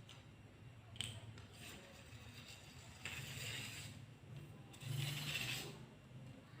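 Handling of a telescopic fishing rod and its packaging: a sharp click about a second in, then two scraping stretches, the second one the loudest.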